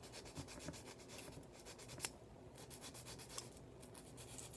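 Flexible sanding stick rubbing back and forth over a plastic model part in faint, quick strokes with short pauses, smoothing down a mold seam.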